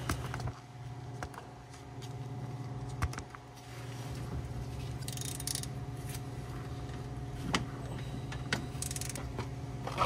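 A ratchet and socket handled on a car's transmission drain plug: a few scattered metallic clicks and clinks and two brief scraping sounds over a steady low hum.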